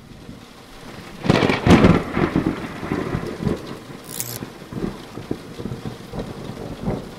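Thunderclap about a second in, followed by rolling thunder over steady rain.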